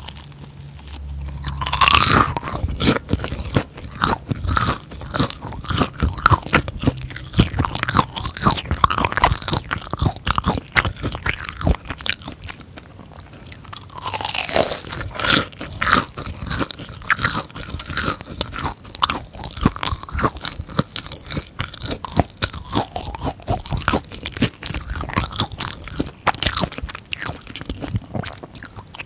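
Close-miked crunching and chewing of a fried cream cheese ball, the crisp breaded crust crackling in quick bites. The crunching eases off for a moment about twelve seconds in, then starts again.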